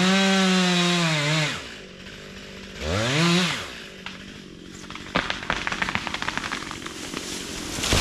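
Chainsaw revving high, dipping briefly and then held at full speed before dropping back to idle about a second and a half in, with a short rev blip around three seconds. From about five seconds there is a rapid run of sharp crackling snaps, and near the end a loud rushing burst.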